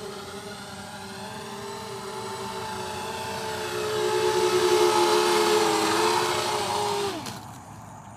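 Eachine Falcon 180 FPV racing quadcopter's brushless motors and propellers whining in flight: a steady buzzing tone that wavers slightly and grows louder. It then falls in pitch and drops away about seven seconds in, as the motors throttle down.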